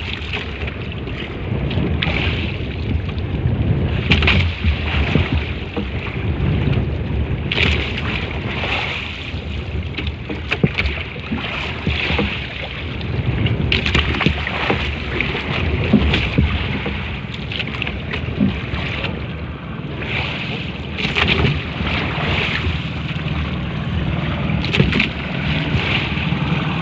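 Wind buffeting the microphone over water sloshing against a small boat at sea, with irregular gusts and splashes.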